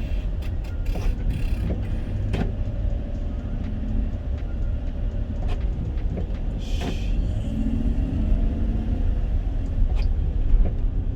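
Steady low engine and road rumble of a U-Haul truck driving, with a few sharp clicks scattered through and a brief hiss about seven seconds in.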